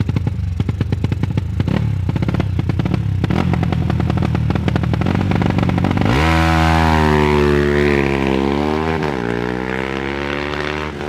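Single-cylinder four-stroke motorcycle engine, a stock Honda Tiger unit with a PWK Sudco 35 Airstrike carburettor. It runs at low revs with distinct, rapid firing beats, then about six seconds in the revs climb sharply to a steady high-pitched run, with a short dip near the end before picking up again.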